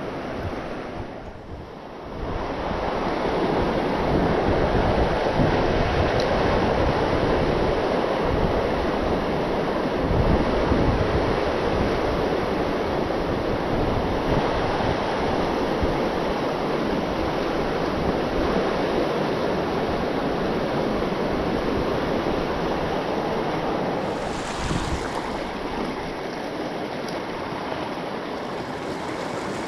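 River water rushing steadily, with wind buffeting the microphone; the noise dips briefly at the start and comes up fully about two seconds in.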